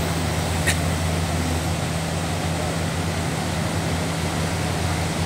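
Pickup truck's engine running in a steady low drone as it drives through a shallow river ford, under the constant rush of fast-flowing river water.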